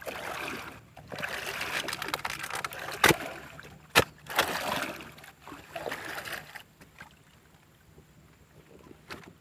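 Water splashing and swishing around a small wooden boat being paddled through swamp water, in uneven strokes, with two sharp knocks on the boat about three and four seconds in. The splashing dies away over the last couple of seconds.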